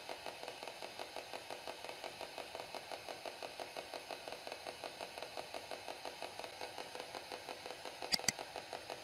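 Faint, even mechanical pulsing, about six beats a second, then two quick sharp clicks near the end: the mouse-click sound of an on-screen subscribe-button animation.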